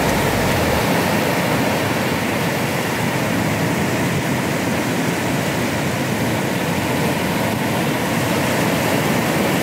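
Ocean surf breaking and washing over a rocky shoreline: a steady rushing noise without letup.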